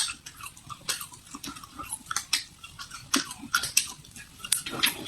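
Close-up chewing and biting with crisp, irregular crunches, several a second.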